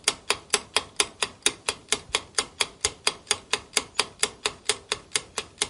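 Clock-tick countdown sound effect: even, steady ticks about four a second, timing the answer period.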